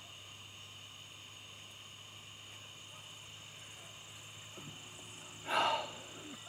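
Steady chorus of crickets, with a short loud burst of sound about five and a half seconds in.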